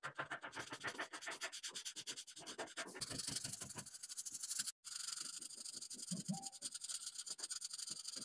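Twin-tip marker scratching back and forth on paper in quick short strokes, several a second, as it colours in. The strokes break off briefly just before five seconds in and then carry on.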